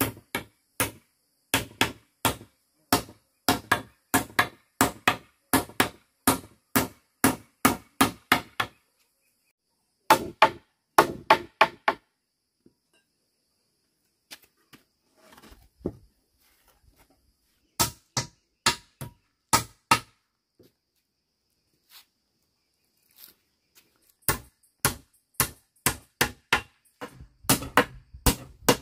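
Repeated sharp blows of a hand tool on bamboo, about two to three a second, in runs broken by pauses of a few seconds.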